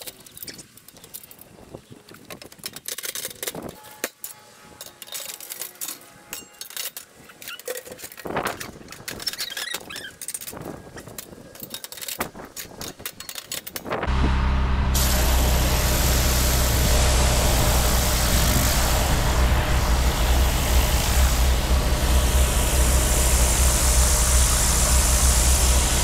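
Scattered knocks and clatter of equipment being handled. About halfway through, a steam cleaning machine comes in suddenly and runs steadily and loudly: a low engine hum with a strong hiss over it.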